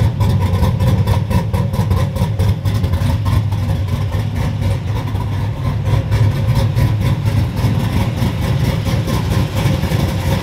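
Cammed Chevy Silverado engine idling with a steady, choppy pulse.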